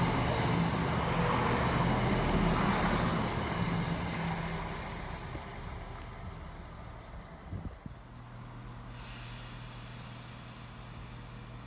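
Class 170 Turbostar diesel multiple unit running past, its underfloor diesel engines droning with wheels on the rails, dying away over the first five seconds as it leaves. After a short knock about eight seconds in, a quieter steady low engine hum of another Class 170 in the distance.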